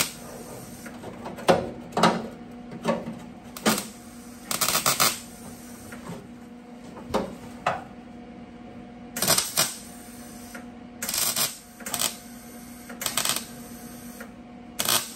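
MIG welder tack-welding a thin sheet-metal patch panel in place: about a dozen brief crackling bursts, each under a second, at uneven intervals, with a steady low hum between them.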